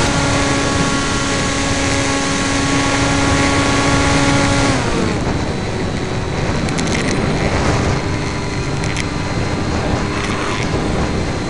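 Electric motor of an EPP-FPV foam RC plane running at a steady pitch under heavy wind noise on the onboard microphone. Nearly five seconds in, the motor winds down with a falling pitch, leaving rushing wind with scattered crackles.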